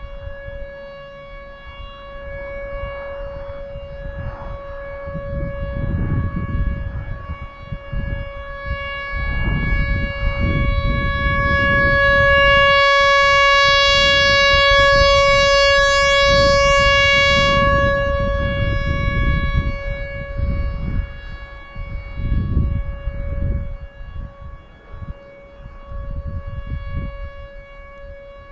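Whelen Vortex R4 rotating electronic warning siren sounding its Alert signal: one steady tone of about 560 Hz with strong overtones. It swells to its loudest around the middle as the rotating horns sweep toward the microphone, then fades again.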